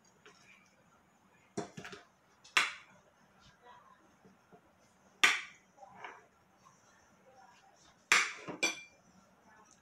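Serving utensils clinking against ceramic plates and bowls as food is dished out: a few sharp clinks spaced a second or more apart, two in quick succession near the end.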